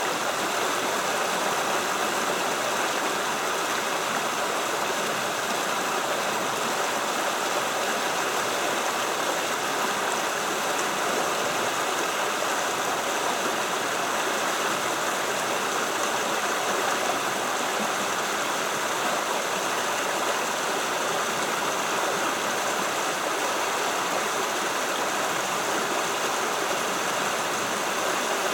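Creek water flowing steadily in a constant rushing hiss.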